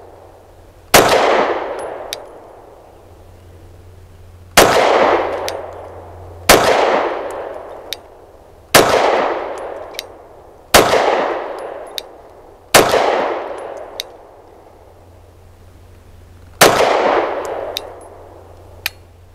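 Lone Wolf Arms Dusk 19 9mm pistol fired seven single shots, unevenly paced about two seconds apart, each bang trailing off in a long echo. Near the end a single faint click with no shot: a failure to fire, which the shooter takes for a light primer strike.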